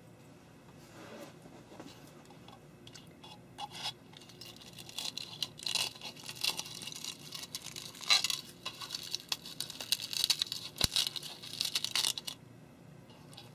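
Hands handling a freshly 3D-printed plastic hopper and picking stringy plastic bits off it: a run of crackling, tearing and small snapping sounds, with one sharp click about 11 seconds in. It starts about three and a half seconds in and stops about a second before the end.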